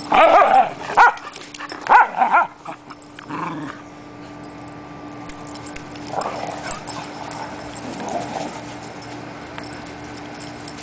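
Dogs vocalizing during rough play, with several short, loud bursts in the first two and a half seconds and fainter ones around six and eight seconds in. A faint steady hum runs underneath.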